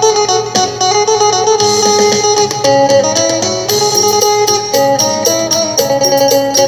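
Background music: a plucked string instrument, guitar-like, playing a quick stepping melody.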